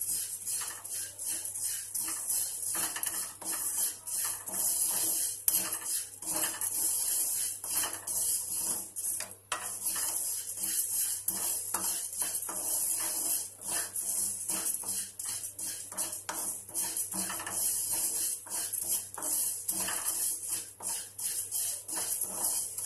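Spatula scraping and clinking against a kadhai as vermicelli is stirred and roasted on a low flame: irregular scrapes several times a second, over a steady high hiss.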